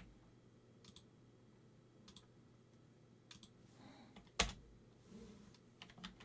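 Scattered clicks of a computer mouse and keyboard, about one every second, the sharpest about four and a half seconds in.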